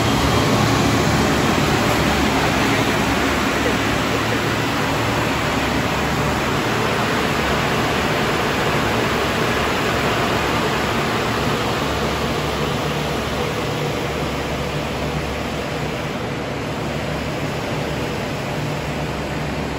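EPE foam sheet extrusion line running: a steady rush of air from its centrifugal cooling blowers over a low motor hum, easing slightly near the end.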